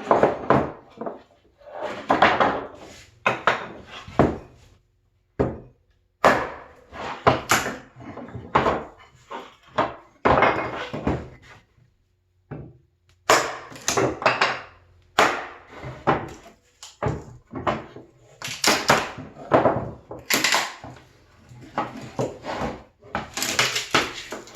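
A hatchet chopping and splitting pallet board wood: a string of sharp wooden chops at irregular intervals, with two short pauses, chipping wood away to expose the nails.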